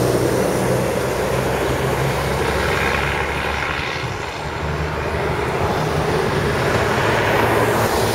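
Road traffic at a signalled intersection: cars passing with engine and tyre noise over a steady low engine hum, dipping slightly about halfway through and then building again.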